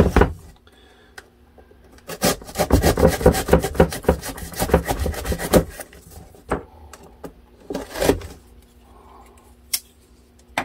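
Long cardboard shipping box being handled and worked open: a knock, then a few seconds of dense, rapid cardboard scraping and rubbing, followed by a few scattered knocks and rustles.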